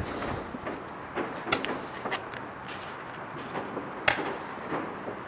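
Two sharp firework bangs, about a second and a half in and again near four seconds, with smaller pops between them, over a steady hiss.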